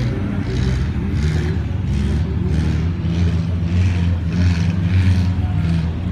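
Off-road trial buggy's engine running under load, with a rasping pulse about twice a second; it grows louder about four to five seconds in.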